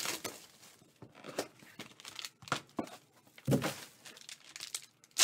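Crinkling and tearing of packaging as a trading-card box is handled and a black foil pack is pulled out and opened, in short irregular crackles, with a duller knock about three and a half seconds in.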